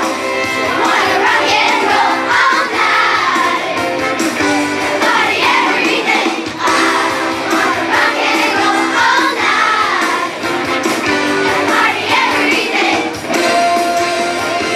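Children's chorus singing together to a musical accompaniment, the melody rising and falling over steady held notes.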